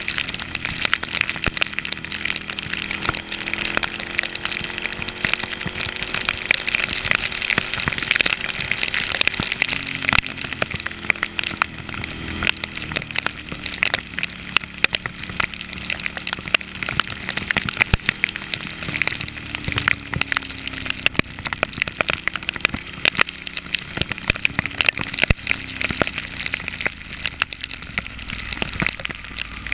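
Heavy rain striking the camera in a dense patter of sharp ticks, over rushing wind and rain hiss, with the Ducati Hypermotard's L-twin engine running underneath, its pitch rising and falling with the throttle.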